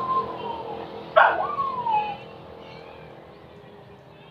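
A dog barking: a falling whine at the start, then a sharp bark about a second in that trails off into another falling whine.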